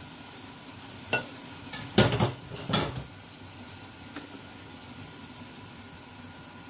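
Covered pot of chicken in tomato sauce cooking with a low, steady sizzle. A few knocks and clatters come about one to three seconds in, the loudest a cluster around two seconds.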